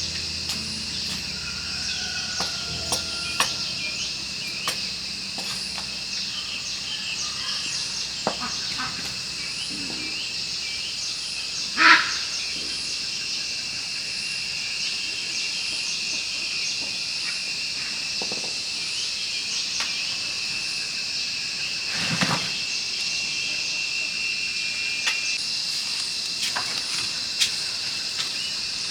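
Steady, high-pitched outdoor insect chorus, with scattered light knocks and clicks of hand work. A louder knock comes about 12 seconds in and another about 22 seconds in.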